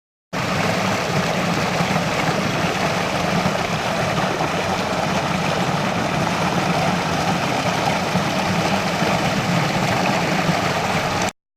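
Steady rush of running water, an even, unbroken flow that starts abruptly just after the start and cuts off abruptly near the end.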